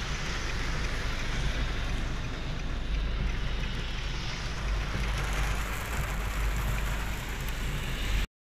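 Heavy rain beating on a car, heard from inside the cabin over the car's steady low rumble. The sound cuts off abruptly near the end.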